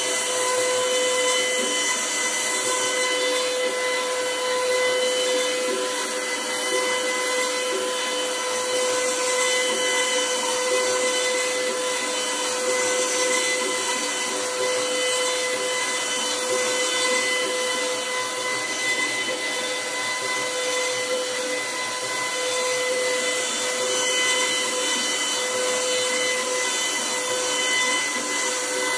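CNC router spindle running steadily with a high whine and a hiss as its bit cuts a pyramid relief pattern into a wooden board.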